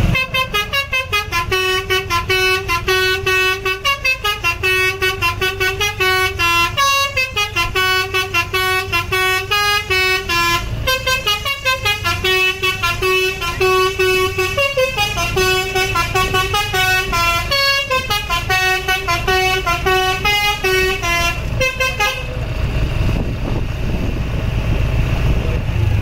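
Basuri telolet multi-tone bus horn playing a fast, jingling melody of short notes that jump between pitches several times a second. It stops about 22 seconds in, leaving the bus's engine running.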